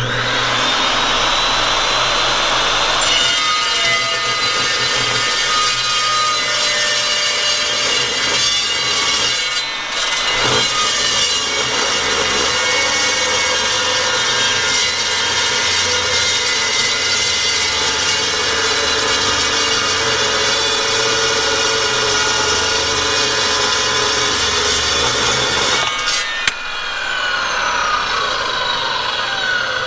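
Morse Metal Devil 14-inch dry-cut metal saw starting up, then its blade cutting steadily through a round 4140 steel bar, with a short dip about ten seconds in. Near the end the cut finishes and the blade spins down with a falling whine.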